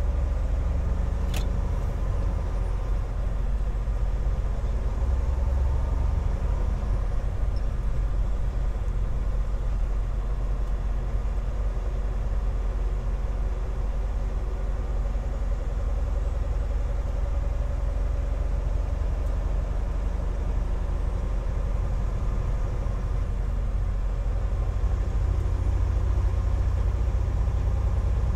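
Semi truck's diesel engine and road noise, a steady low drone heard inside the cab while driving, with one sharp click about a second in.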